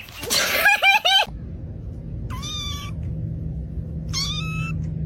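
Cat meowing: a quick run of short meows, then a steady low hum begins and two longer meows follow, about two seconds apart.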